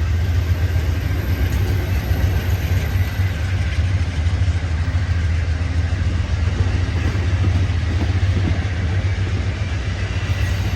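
Amtrak California Zephyr train with its P42 Genesis diesel locomotives running, a steady low rumble under an even noise.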